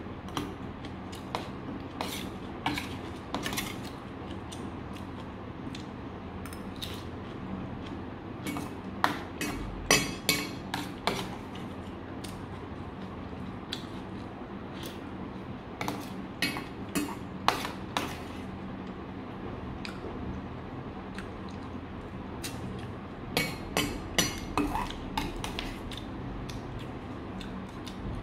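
Metal spoon scraping and clinking against a stainless steel bowl while eating, in irregular clusters of sharp clinks, over steady background noise.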